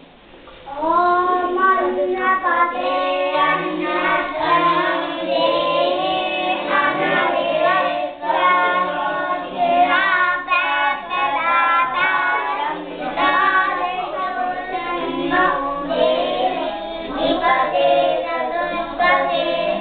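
A group of boys chanting a Sanskrit mantra together in a sing-song melody, starting about a second in. It is the mantra recited before a meal.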